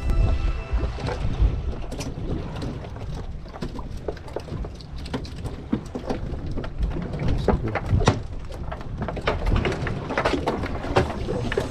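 Irregular pattering and slapping of freshly caught small scad flapping on a fibreglass boat deck as they are shaken off a multi-hook line, over a low rumble.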